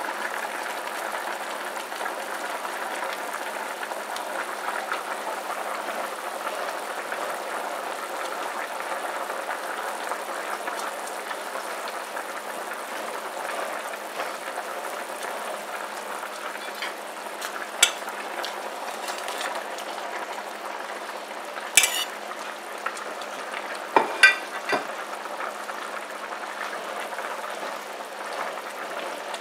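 A pot of chicken pieces boiling steadily on a stove, a continuous bubbling hiss. A few sharp clinks break in during the second half, two close together, as sliced sausage is put into the pot.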